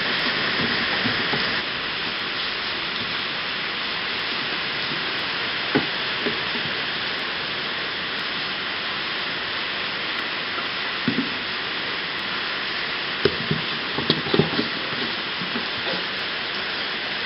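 Steady hiss of rain throughout, with a few brief soft knocks from kittens playing and batting a toy against a cardboard box, most of them between about 13 and 15 seconds in.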